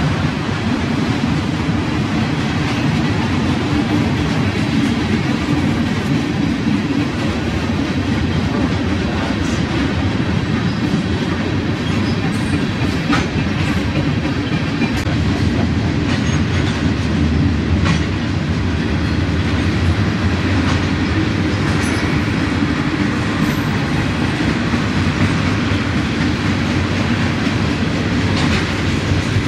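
Freight train cars (tank cars and boxcars) rolling past: a steady rumble of steel wheels on rail, with a few sharp clicks along the way.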